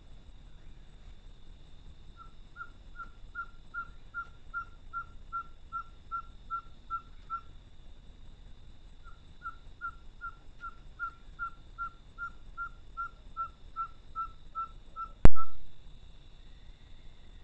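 An owl calling at night: a long, even series of short whistled notes on one pitch, about three a second, in two runs with a short pause between. Near the end a single sharp, loud click cuts across the calls.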